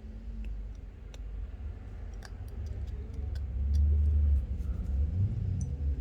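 Scattered light clicks of small tools and screws on the phone's internal metal parts, over a low rumble that swells about four seconds in.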